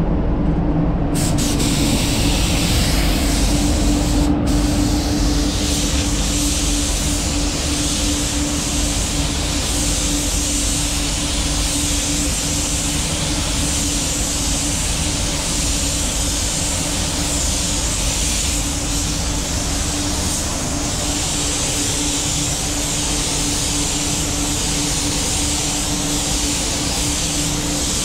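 Gravity-feed paint spray gun hissing steadily as it sprays acrylic primer wet-on-wet, starting about a second in with a brief break around four seconds when the trigger is let off, over a steady low hum.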